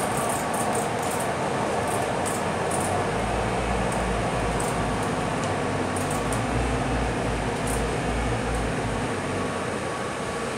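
Interior noise of a Scania K320UB city bus under way: its five-cylinder diesel engine running with road and tyre noise, and a low drone from about three to nine seconds in. The noise eases a little near the end as the bus slows toward stopped traffic.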